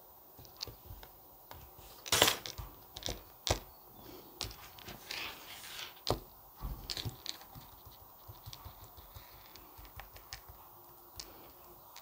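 Paper-craft handling noises: scattered light clicks and taps from metal tweezers and card, the sharpest about two seconds in, with short soft rustles of paper as hands press a die-cut paper piece flat onto card.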